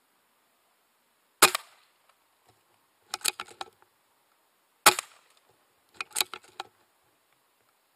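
Air rifle fired twice, about three and a half seconds apart, each shot a sharp crack. About a second and a half after each shot comes a quick run of smaller clicks.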